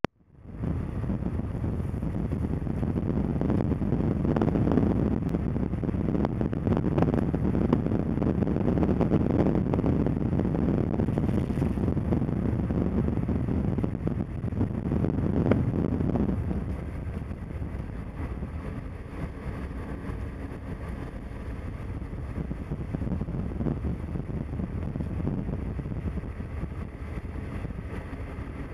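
Car driving, heard from inside the cabin: a steady low rumble of engine and tyres on the road, louder for the first sixteen seconds or so, then somewhat quieter.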